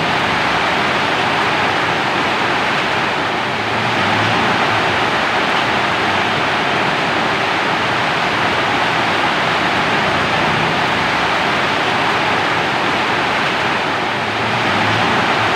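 Steady heavy rainfall, a dense even hiss of falling rain that swells slightly a couple of times.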